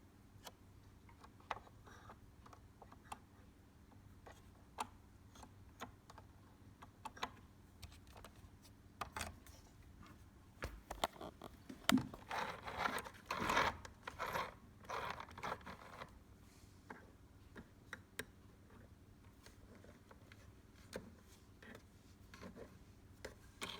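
Hands handling cloth and the parts of a small sewing machine: scattered light clicks and taps, with a stretch of fabric rustling and scraping about halfway through. The machine's motor is not running.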